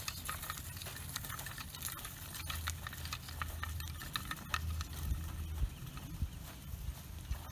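Pony walking on a gravel-and-sand arena, its hooves and a person's footsteps crunching in irregular steps, as it pulls a drag on a singletree.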